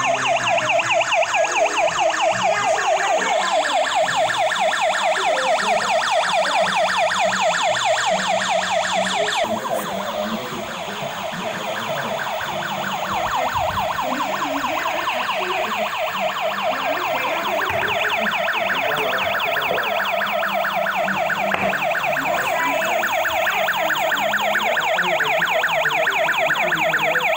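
Electronic siren of a battery-operated toy police car, a fast warbling wail repeating steadily, briefly quieter about ten seconds in.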